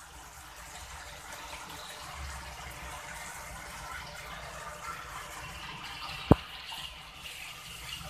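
Thick tomato-and-onion gravy bubbling in a pan while it is stirred with a plastic spatula: a steady, even noise. One sharp knock about six seconds in.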